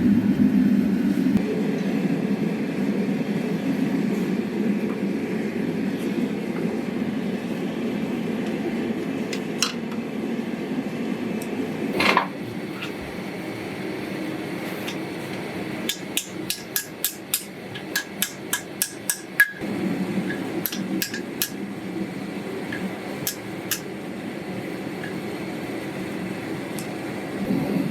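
Hand hammer striking steel on an anvil while forging a knife guard, over a steady low roar. First come a couple of single blows, then a quick run of about a dozen strikes, three or four a second, and then a few more spaced strikes.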